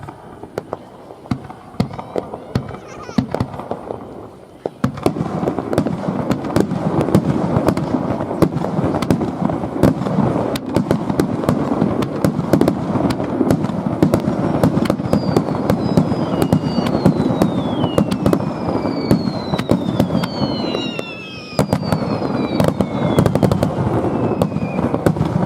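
Fireworks display: a few scattered bangs, then from about five seconds in a dense, continuous crackle of many bursts at once. Several whistles falling in pitch sound over the crackle in the second half.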